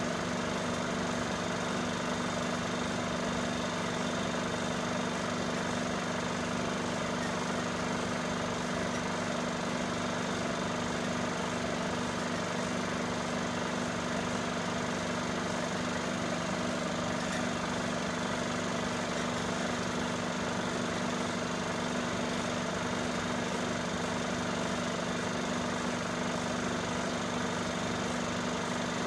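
Film projector running with a steady, unchanging mechanical hum.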